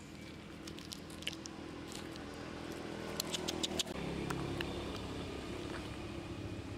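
Baby macaque eating rambutan from a hand, with small sharp wet clicks of chewing and lip-smacking in two short runs. A low steady rumble sits underneath and gets louder about four seconds in.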